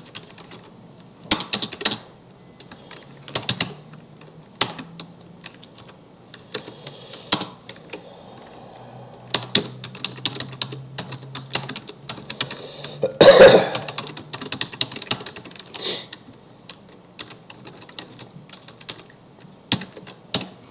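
Typing on a computer keyboard: irregular clusters of key clicks, with one louder, longer burst about 13 seconds in.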